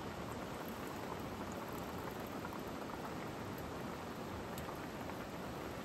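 Steady hiss and faint crackle of a log fire burning in a fire stand under a simmering, steaming pot.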